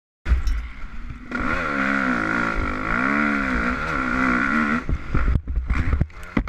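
Motocross bike engine revving up and down under load, heard from an onboard action camera, with a steady rush of wind on the microphone. About five seconds in, the steady engine note breaks into a run of sharp knocks and scrapes as the bike goes down on the rocky ground.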